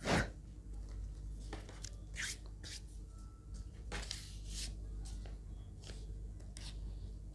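Handwriting: a loud rustle right at the start, then short scratchy pen strokes on paper every second or so, over a low steady hum.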